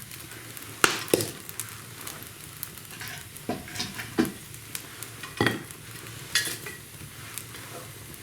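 Wood fire in an open brick fireplace crackling, with sharp irregular pops over a steady hiss. The hiss is damp walnut wood sizzling as moisture boils out of it.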